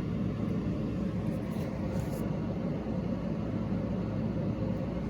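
Steady low background hum with no distinct events.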